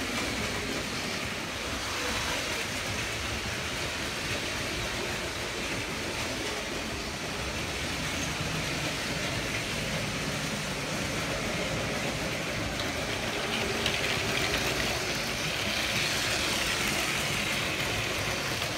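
Motorised LEGO trains running around a plastic-track layout, a steady mechanical noise of small motors and wheels on the rails.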